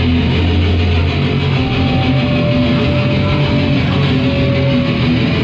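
Live post-punk band playing loud guitar-driven rock music, with electric guitar over a heavy bass line.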